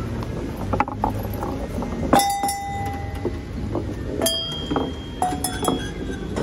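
A ball rolling along a wooden marble-run trough and knocking into hanging metal cowbells, which ring out. The first strike comes about two seconds in and a few more follow near the end, over a low rumble of the ball rolling on wood.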